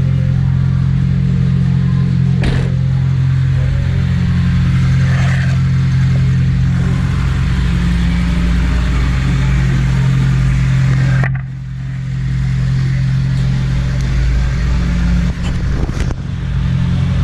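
A car engine running steadily with a low, even hum, dipping briefly about eleven seconds in.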